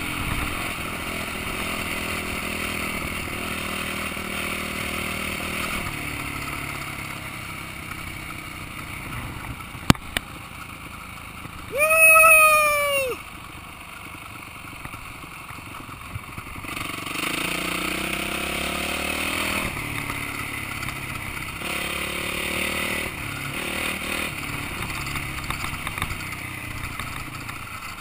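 Enduro motorcycle engine running at riding speed with wind noise, its revs rising at times as it pulls away. About twelve seconds in, a loud pitched tone rises and falls for just over a second, louder than the engine.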